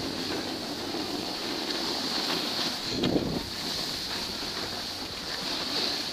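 Wind rushing over the microphone of a goggle-mounted camera while moving downhill, with a steady hiss of sliding over packed snow and a brief low thump about three seconds in.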